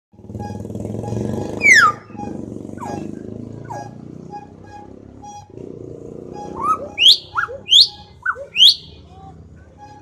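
Hill myna giving loud, sharp whistles: a long falling whistle about two seconds in, two shorter falling notes, then a quick run of whistles that swoop up and drop in the last few seconds. A low drone runs underneath through the first half.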